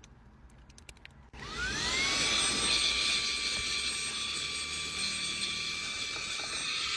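Handheld vacuum cleaner switched on a little over a second in, its motor whine rising quickly in pitch and then holding steady over a rush of air as it sucks dust from a seat.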